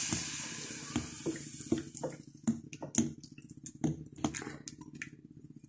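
Cooking oil poured into a metal karahi over sliced raw onions: a steady pouring sound fading out over about the first second, then scattered small ticks and pops.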